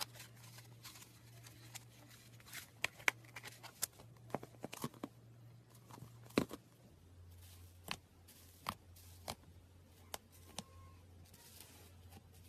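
Slime being handled, squeezed and stretched: irregular sticky clicks and crackling pops, some sharper than others.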